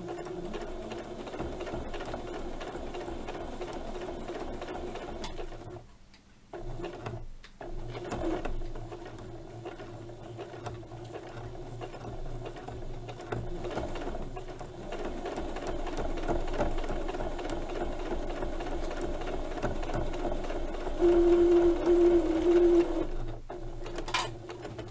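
Janome domestic sewing machine stitching a seam through pinned batik patchwork, running steadily with two brief stops about six and seven seconds in. It runs louder for a couple of seconds near the end, then stops.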